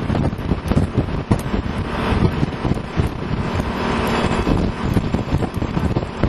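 Detroit Diesel 6-71 two-stroke inline-six diesel of a 1969 Hahn fire truck running at highway speed, heard from the open cab under heavy wind buffeting on the microphone.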